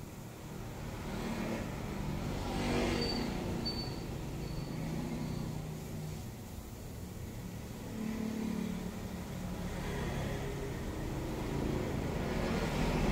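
Road traffic passing by: a steady low rumble with vehicles swelling up and fading away about three times, plus a brief high-pitched tone a few seconds in.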